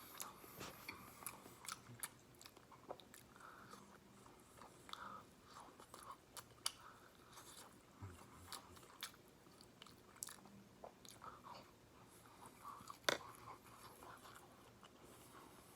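Close-miked chewing and biting of boneless fried chicken from a Hungry-Man meal: faint, wet mouth sounds with small crunches and clicks, and one sharper click late on.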